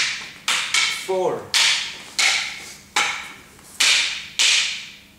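Arnis fighting sticks clashing in a partner drill: about nine sharp clacks at uneven intervals, each echoing briefly in the hall. A short vocal sound comes about a second in.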